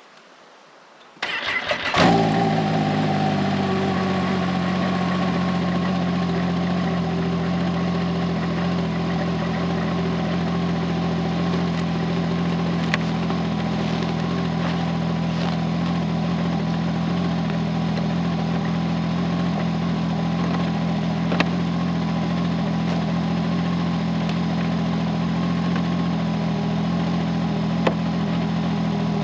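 Snowmobile engine starting: it is cranked about a second in, catches almost at once and settles into a steady idle, left running to warm up on a cold morning.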